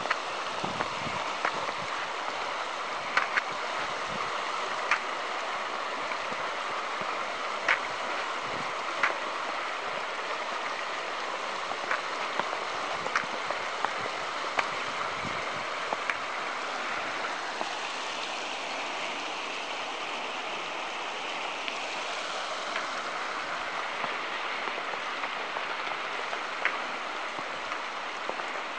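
The Kananaskis River running shallow over rocks and boulders: a steady rushing of water. Scattered sharp ticks come irregularly throughout.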